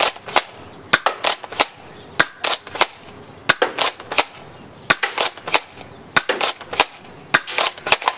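Plastic airsoft snub-nose shotgun firing over and over: many sharp snapping shots, often two or three close together, at an uneven pace.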